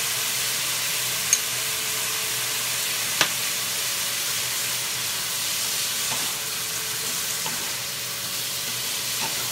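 Cubed sirloin steak and sliced mushrooms sizzling in hot avocado oil in a skillet on high heat, stirred with a spatula, with two sharp clicks about one and three seconds in.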